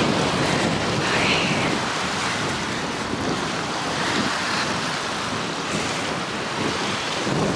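Small lake waves washing against the shore, a steady rushing noise.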